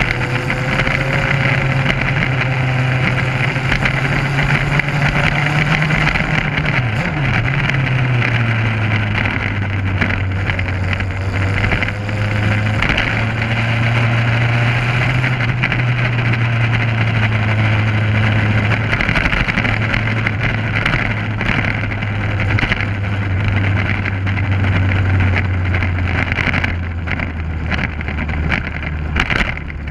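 Motorcycle engine running steadily at road speed, with wind noise over the microphone. The engine note dips and shifts about a quarter of the way in, then drops lower twice later on.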